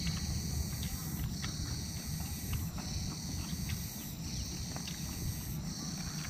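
Insects chirring in the background, their high chorus swelling and dropping every second or two, over soft mouth-closed chewing of raw leaves and sambal. Faint clicks come from fingers picking leaves off a plate.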